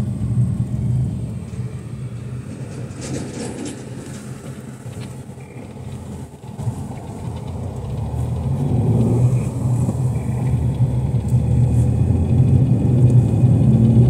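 Car driving on the road, a steady low engine and tyre rumble heard from inside the cabin; it eases off a little midway, then grows louder over the last several seconds.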